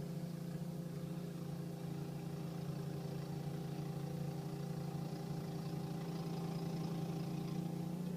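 Snowblower engine running steadily, a constant drone that holds the same pitch throughout.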